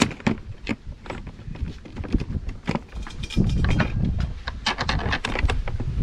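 Irregular clicks, clinks and knocks of small metal hardware being handled, with a low rumble about halfway through.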